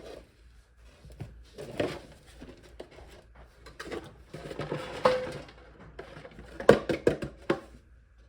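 Dishes and containers being handled in a kitchen: scattered knocks and clinks, with a cluster of sharper knocks near the end.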